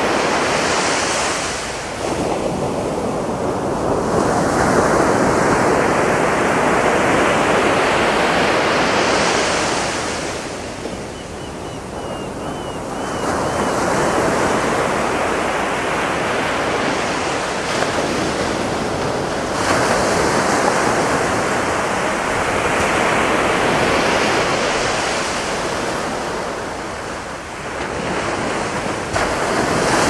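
Atlantic Ocean surf breaking on a sandy beach: waves crash and wash up the shore in slow swells. The sound eases off briefly about twelve seconds in and again near the end.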